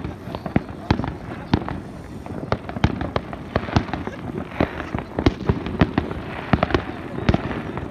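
Fireworks display going off: sharp bangs, several a second at irregular intervals, over a continuous background of rumbling.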